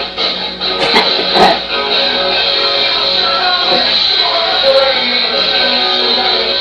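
Rock music with guitar playing back from an old camcorder tape, heard through the camcorder's small speaker, with a couple of brief clicks about a second in.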